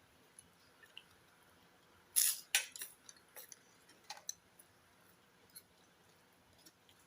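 Sounds of someone eating a meal by hand: a cluster of sharp, loud crackly noises a little past two seconds and another short pair around four seconds, with faint small clicks in between.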